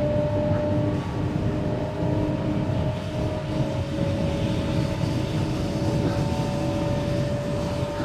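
Inside a Waratah Series 2 (B set) electric train under way: steady running rumble with a whine of several steady tones from the traction equipment.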